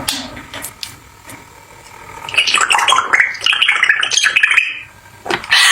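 Water splashing in a rapid, fluttering patter for about two seconds, starting a little over two seconds in.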